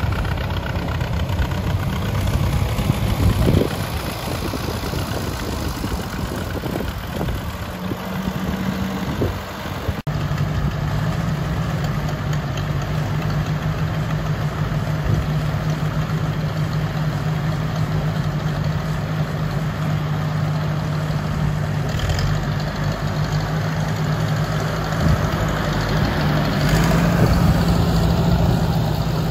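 Several vintage Ford tractor engines running at low speed as the tractors drive past in a line, a steady engine drone that settles into a firmer, even note about a third of the way in.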